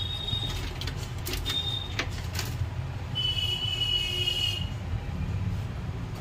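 A few sharp clicks and taps from hands handling an opened laptop's chassis and parts, over a steady low rumble. A high squeak-like tone sounds for over a second about three seconds in.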